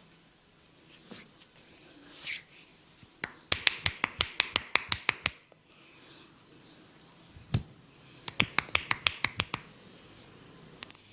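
Hands tapping rapidly on a person's forehead in a massage, in two quick runs of sharp taps at about seven a second, with a single heavier slap between them.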